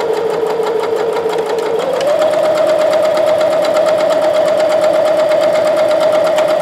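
Electric domestic sewing machine stitching a seam through coat fabric: a steady motor whine with rapid, even needle strokes. It speeds up about two seconds in and holds the faster pace.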